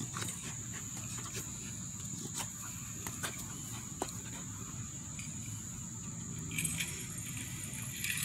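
Cane Corso puppy tugging and mouthing a plush toy on grass: scattered short clicks, rattles and rustles, over a steady high-pitched tone and a low steady hum.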